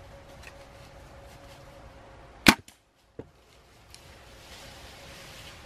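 A single sharp crack about halfway through, followed at once by a moment of dead silence and then a fainter click, over faint steady background noise.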